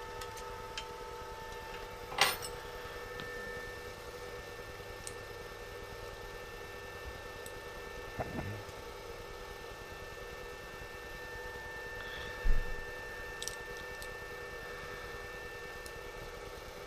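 Occasional clinks and knocks of metal bike-rack parts, bolts and a hex key being handled and fitted together by hand, over a steady faint hum. There is a ringing clink about two seconds in, and the loudest sound is a dull knock about twelve seconds in.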